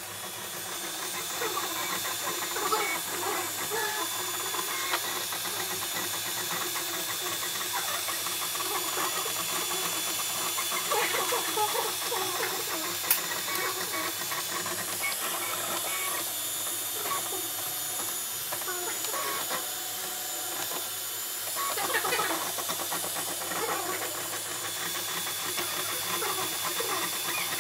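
An Ultimaker 3D printer at work: its stepper motors whine in short, constantly shifting pitches as the print head moves back and forth, over the steady hiss of the print-head cooling fans.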